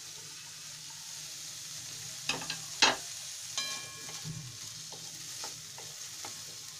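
Chopped vegetables and paneer cubes sizzling in oil in a metal kadhai while a spatula stirs them. A few sharp knocks of the spatula against the pan come a little over two seconds in, the loudest near three seconds, followed by one short ringing clang and lighter taps.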